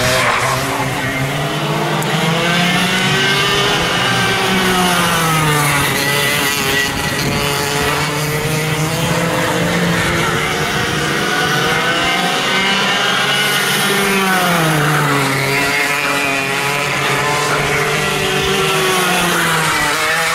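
Racing kart engine running at speed around the circuit, its pitch rising as it accelerates and dropping as it slows for corners, several times over.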